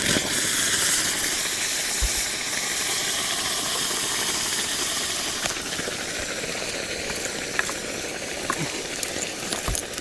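Hot stones hissing in water during stone boiling: a steady steam hiss that starts suddenly and eases slightly, with a few faint knocks.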